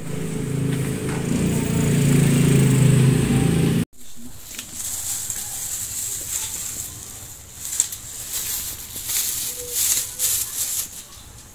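A loud, steady low hum that cuts off suddenly about four seconds in. It is followed by the crinkling and rustling of a clear plastic bag being handled.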